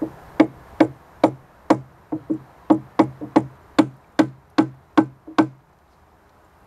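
About fifteen sharp, hollow knocks, two to three a second, stopping suddenly about five and a half seconds in, as a makeshift plug is knocked into the leaking outlet of a water tank.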